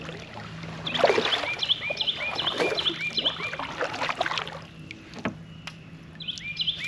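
Kayak paddle strokes swishing through the water, with a few light knocks. Over them a songbird sings a fast run of repeated whistled notes, about three a second, and starts another run near the end.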